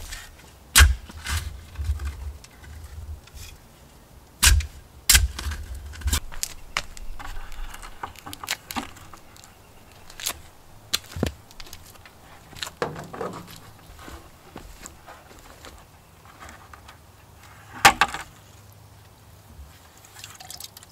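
A shovel digging into soft garden soil, in a quick series of sharp scrapes and heavy thuds as the blade cuts in and dirt drops. After about six seconds the knocks and scrapes come more sparsely, with one loud knock near the end.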